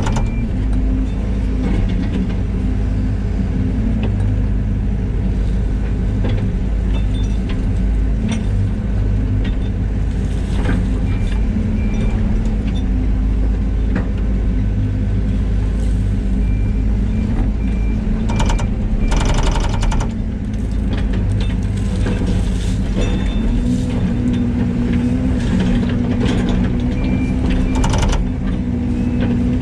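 Ford L9000 dump truck's diesel engine running steadily under way, heard from the cab, with a brief clatter of sharp clicks about two-thirds of the way through.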